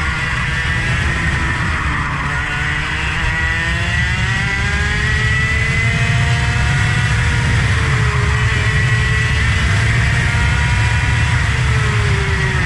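A vehicle engine running hard, its pitch climbing for several seconds, holding, dipping briefly past the middle and falling near the end as it backs off, over a steady low rumble.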